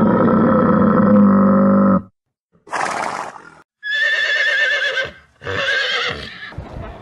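A dromedary camel's long, low, drawn-out call for about the first two seconds. After a short pause come a brief breathy burst and a horse neighing twice, each whinny quavering in pitch.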